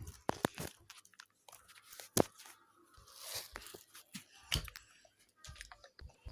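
Scattered clicks, taps and soft crackles of small objects being handled, with two louder sharp clicks partway through.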